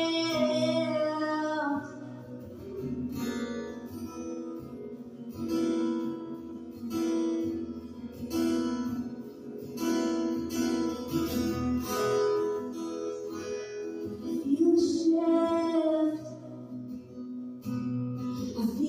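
A woman singing solo to her own acoustic guitar accompaniment.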